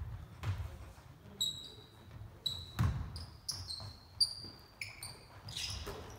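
Basketball bouncing on a hardwood gym floor in irregular thumps, with basketball shoes squeaking in short bursts on the court as players cut and stop.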